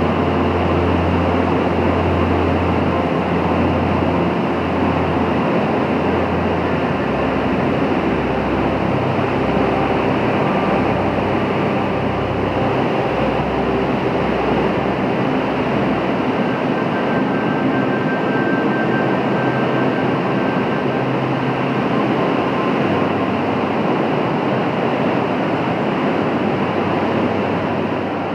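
Loud, steady rush of a large waterfall on the Yellowstone River, falling water pounding with a deep, even rumble underneath.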